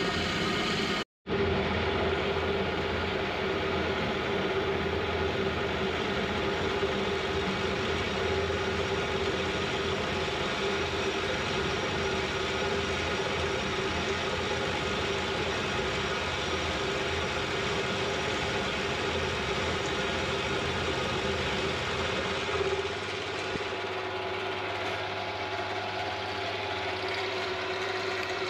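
Milling machine running, its cutter taking a 1.5 mm roughing pass along a steel beam under power feed: a steady machine hum with the grinding of the cut. It cuts out for an instant about a second in, and it gets a little lighter near the end.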